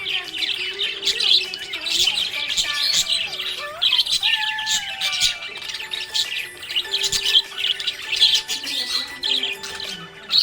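Several budgerigars chirping and chattering without pause, a dense run of quick, high chirps and warbles with occasional harsher squawks.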